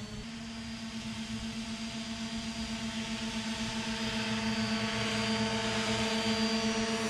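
Radio-controlled skirtless hovercraft's three motor-driven propellers running steadily at one pitch, growing louder until about six seconds in.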